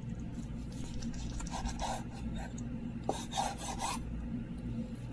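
A long kitchen knife sawing back and forth through a cooked rib steak, the blade scraping a wooden cutting board. The rasping strokes come in two short runs, with a small click between them.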